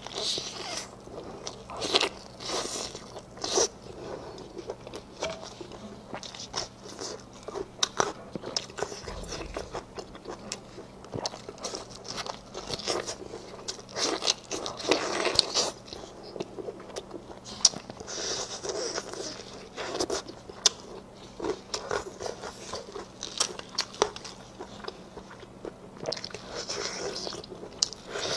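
Close-miked eating sounds: biting and tearing saucy braised meat off a large bone, with wet chewing and smacking and frequent sharp little crunches and clicks. A faint steady hum sits underneath.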